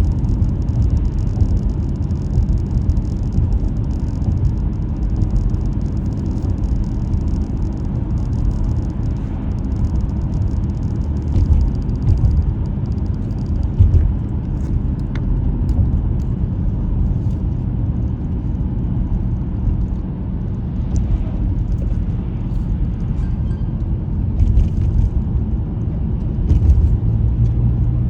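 Car being driven: a steady low rumble of engine and road noise, with a few faint ticks and knocks.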